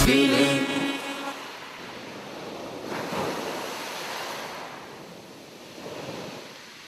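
Ocean surf: waves breaking and washing up on a beach, swelling about three seconds in and again near the end, then fading.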